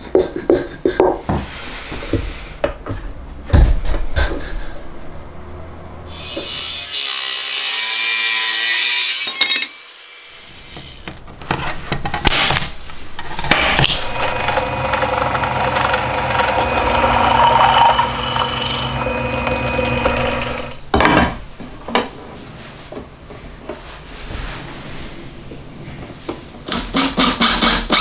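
A power saw cutting wood in stretches of several seconds, between knocks and clatter of wood being handled.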